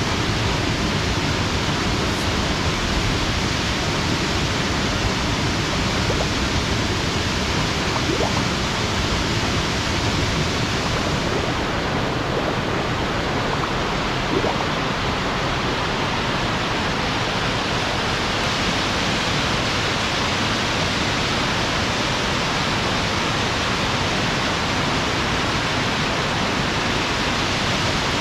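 Edessa Waterfalls, a high waterfall, with water rushing steadily in an unbroken, even noise.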